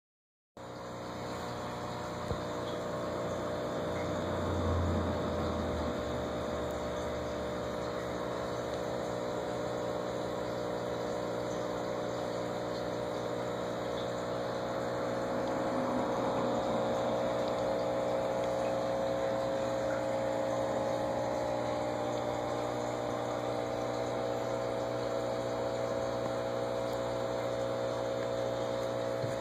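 Aquarium pump running: a steady, even hum of several tones over a soft watery haze, with a brief low rumble about five seconds in.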